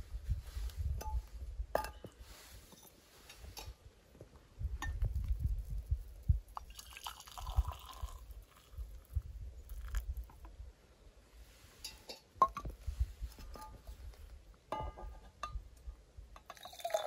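A drink being poured, with glass clinks and small knocks of handling.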